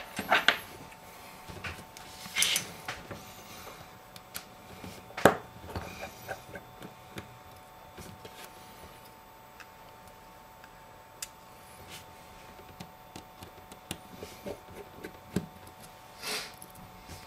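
Faint scattered clicks and scrapes of a small precision screwdriver working the tiny screws on the metal backplate of an iPhone 5 screen assembly, with one sharper tap about five seconds in and brief rustles of handling the part.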